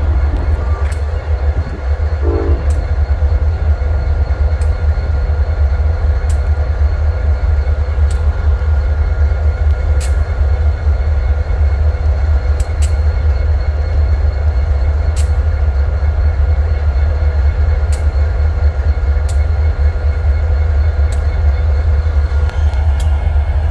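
A train rolling by: a steady heavy rumble with a sharp click every couple of seconds as the wheels cross rail joints.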